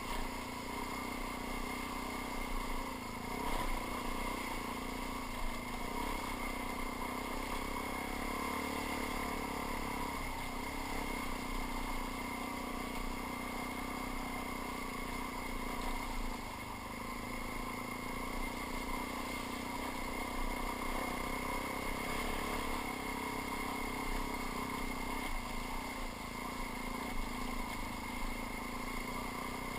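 Suzuki DR-Z400 dual-sport motorcycle's single-cylinder four-stroke engine running under way along a rough dirt trail, its pitch fairly steady with small rises and dips in revs.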